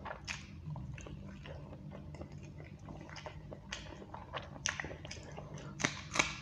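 Close-miked mouth sounds of a person eating boiled egg and curry-soaked rice by hand: wet chewing with a string of short sticky clicks, the loudest a little before the end. A steady low hum runs underneath.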